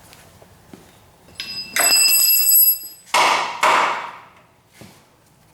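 Metal ringing and creaking from an engine hoist and its lifting chains as they take the strain of a small-block engine and transmission, followed by a rasping scrape. The engine does not lift free, which the owner puts down to rusted-in motor mounts.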